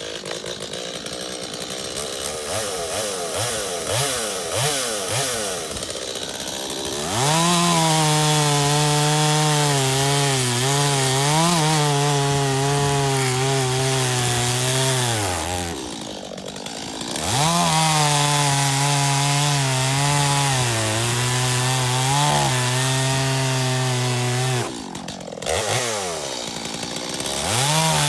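Stihl MS 250 two-stroke chainsaw bucking red elm into firewood. For the first several seconds it runs lighter with its pitch wandering. Then it holds at full throttle through a long cut about seven seconds in, drops off briefly, cuts again, eases off once more, and revs back up near the end.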